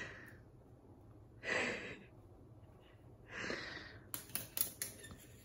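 African grey parrot hissing three times, short breathy hisses about a second and a half apart, the warning sound of a wary bird. About four seconds in, a quick run of light clicks starts.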